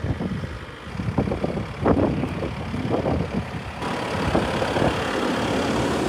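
A farm machine's engine running, carrying the hay bale, with irregular knocks and rustles over it for the first few seconds; the engine hum grows steadier from about four seconds in.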